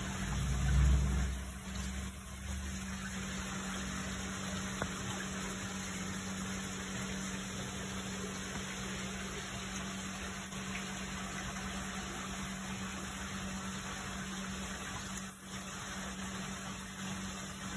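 Steady hiss of moving water over a steady low pump hum, as from a koi tank's water circulation, with a brief low rumble near the start.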